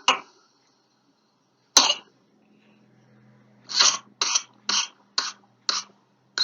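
Coughing typical of whooping cough (pertussis): two single coughs, then a rapid paroxysm of about six short coughs, roughly two a second.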